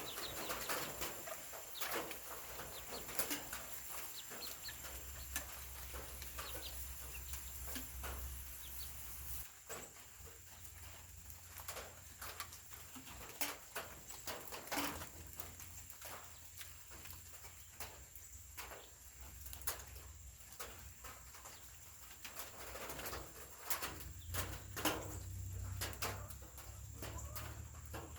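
Serama bantam chickens clucking softly, with many scattered short taps and rustles throughout.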